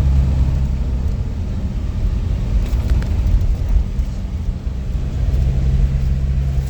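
Motor vehicle engine running in traffic: a low rumble with a steady hum that drops away for a few seconds in the middle and comes back.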